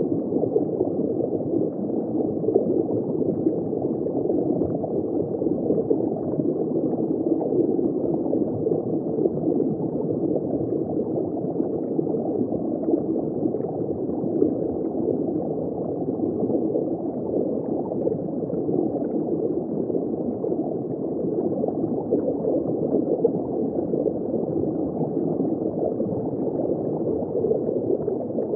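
Steady, muffled gurgling and bubbling of water circulating in a saltwater reef aquarium, with no distinct events.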